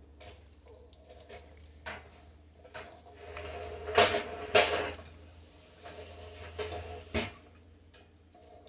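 A utensil stirring and scraping in a mixing bowl as frosting is mixed by hand, with scattered clinks against the bowl. The two loudest knocks come about four seconds in, half a second apart, and a single one near the end.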